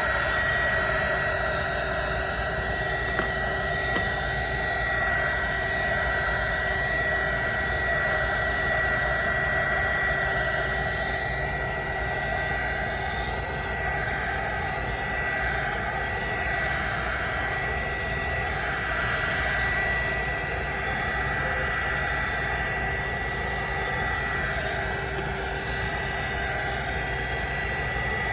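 Heat gun blowing steadily, with a steady high whine from its fan, heating the phone's screen to soften the adhesive.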